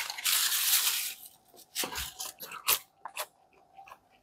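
Fast food and its paper and cardboard packaging being handled: about a second of loud rustling and tearing, then scattered crisp crackles and small clicks as a piece of burger is pulled off and eaten.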